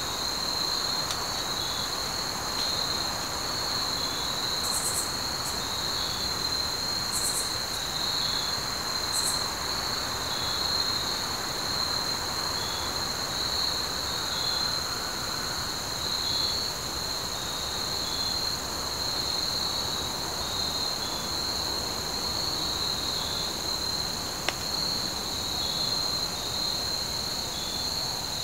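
Woodland insect chorus: a steady, high-pitched trill with a fainter chirp repeating about once a second. A few brief, very high buzzes come in near the start, and there is a single faint click near the end.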